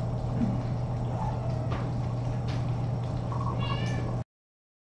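Faint high kitten mews over a steady low hum, the clearest mew about three and a half seconds in; the sound cuts off suddenly shortly after.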